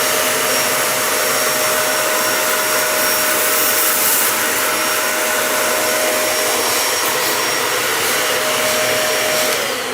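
Dyson Animal 3 vacuum cleaner running steadily over oatmeal on carpet, with a steady motor whine; on this setting it pushes the heavier particles away instead of picking them up. Near the end it is switched off and the whine winds down in pitch.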